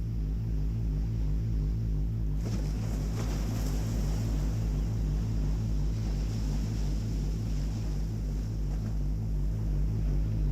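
Synthesizer playing a low droning chord that pulses at an even rate, with a hiss joining suddenly about two and a half seconds in.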